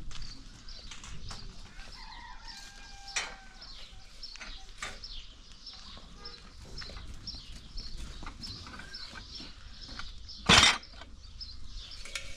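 Small birds chirping over and over, with scattered light knocks and one short, loud clatter about ten seconds in.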